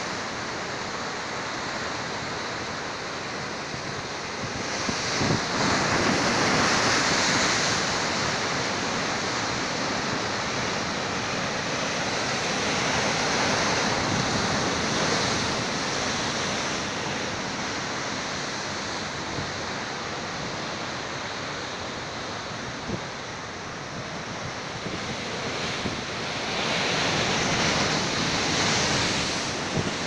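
Heavy sea surf breaking and churning against rocks, a continuous rushing wash that swells louder about five seconds in and again near the end as bigger waves break.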